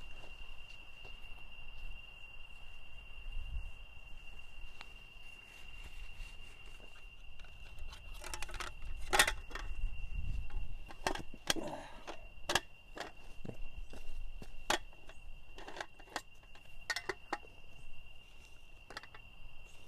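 A night insect's steady, high, one-pitch trill runs throughout. From about eight seconds in it is joined by a string of sharp metallic clicks and knocks as a small folding camp table is handled, unfolded and set down.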